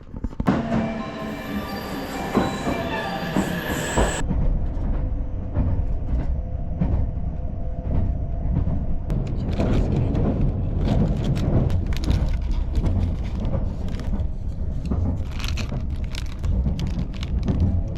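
A train on the move. For the first few seconds there are high, steady squealing tones over running noise. After an abrupt cut comes a loud, low, uneven rumble with scattered clicks and clacks from the wheels on the rails.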